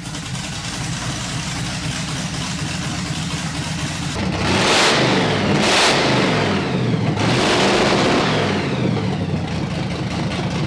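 Supercharged car engine idling, then revved three times about a second apart starting around four seconds in, loudest through the revs, before falling back to idle.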